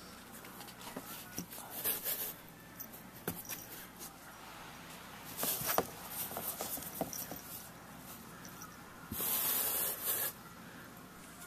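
A cat pawing and biting at a feather toy, rustling and scraping against cardboard and carpet in short irregular scuffles, with one louder rustle lasting about a second near the end.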